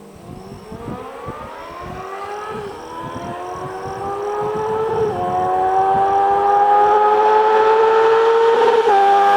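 Honda CBR650F's inline-four engine, breathing through a Jeskap GP2 titanium slip-on exhaust, accelerating hard: the exhaust note climbs steadily in pitch and grows louder over several seconds, with a brief step up in pitch about halfway through.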